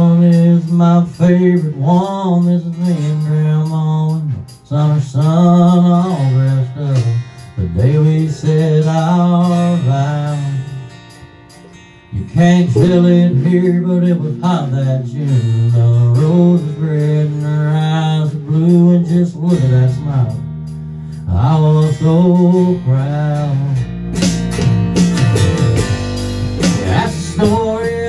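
Small band playing a country song: strummed acoustic guitar, electric bass and drum kit, with a melodic line bending above the steady bass. The music drops in level around ten seconds in and comes back full at about twelve seconds.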